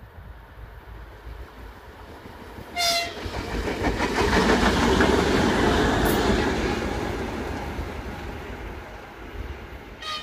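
A 2M62U two-section diesel locomotive passes close by, its two-stroke diesel engines rumbling and its wheels clattering over the rails. The noise swells to a peak in the middle and fades as it recedes. A short horn toot sounds about three seconds in, and another brief toot comes near the end.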